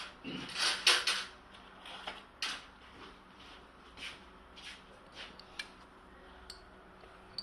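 Scattered light clicks and clacks of metal on metal as a welding electrode holder is handled and a 2 mm electrode is tried in its jaws to check the grip, busiest in the first second or so.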